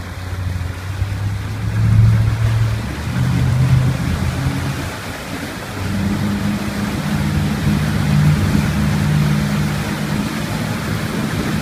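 Motorboat engine running under load while towing, its hum stepping up in pitch about six seconds in as the boat speeds up, over the rush of the churning wake.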